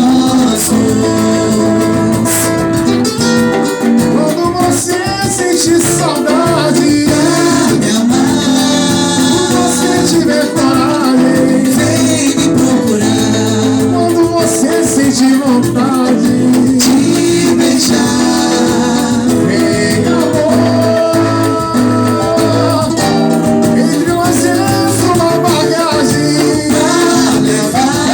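Small band playing continuous Brazilian bar-style music: a gliding lead melody over strummed guitar, a bass line and a steady beat.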